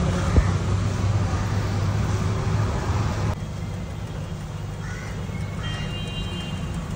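Busy street noise: a steady low traffic hum under a broad haze, which drops abruptly about three seconds in. Short, high-pitched calls come near the end.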